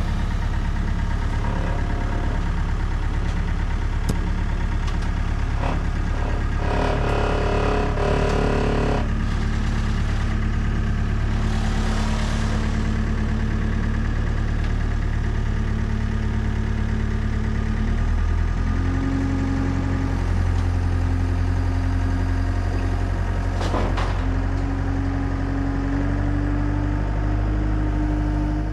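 Diesel engine of a Weidemann 2070 compact loader running steadily as the machine drives off a trailer down its loading ramps. Engine speed steps up about two-thirds of the way through and again near the end.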